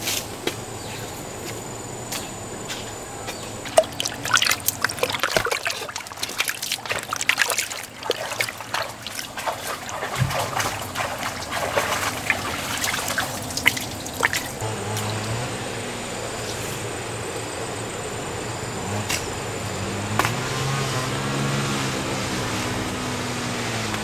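Water splashing in quick, irregular bursts for about ten seconds, then a low, wavering hum takes over.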